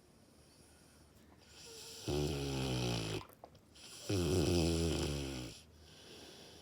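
A sleeping Dogue de Bordeaux (French mastiff) snoring: faint breathing, then two loud, pitched snores about two seconds apart.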